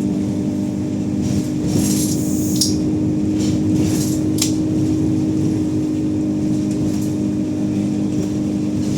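ADL Enviro200 single-deck bus running with a steady engine and transmission drone. A few brief high hissing or rattling noises come between about two and four and a half seconds in.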